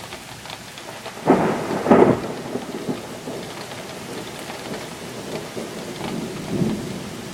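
Heavy rain falling steadily, with a loud thunderclap about a second in that rumbles for roughly a second before fading, and a weaker roll of thunder near the end. The storm is close overhead, with thunder coming at the same time as the lightning.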